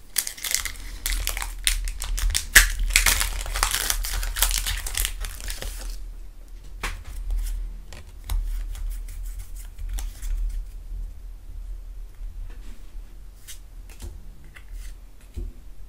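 Foil wrapper of a Pokémon Vivid Voltage booster pack crinkling as it is torn open, for about six seconds. After that it goes quieter, with a few scattered flicks as the trading cards from the pack are handled.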